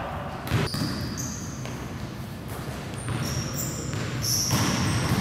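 Basketball bouncing on a wooden gym floor, with a sharp bounce about half a second in, and short high squeaks from sneakers on the court as the players move, all echoing in the large hall.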